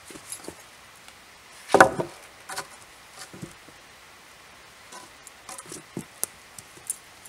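A long wooden pole set down onto a log bed frame. About two seconds in comes one loud wooden knock with a brief ring, followed by a few lighter wood-on-wood knocks and sharp clicks as the pole is shifted into place.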